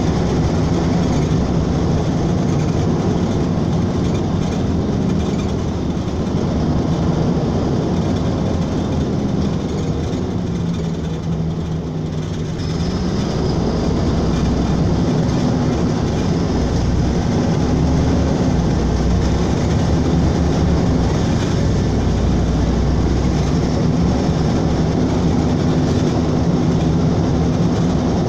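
Cabin noise of a moving LiAZ-5292.22 city bus: steady engine and road noise. About ten to twelve seconds in, the engine note falls and quietens briefly, then rises again, and a faint high whine joins it from then on.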